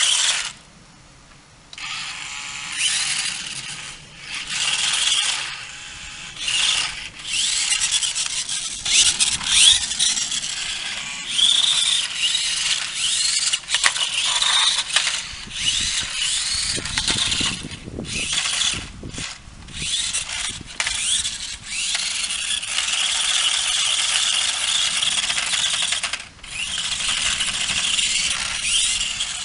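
Sharper Image Spin Drifter 360 remote-control car's small electric drive motors and plastic gears whirring and whining in repeated bursts that start and stop every second or two, the whine rising and falling in pitch. It runs more steadily over the last few seconds.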